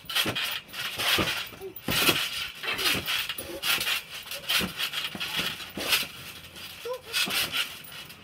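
Trampoline bouncing under two jumpers: the mat thumps roughly once a second, with clinking and jangling from the springs and frame.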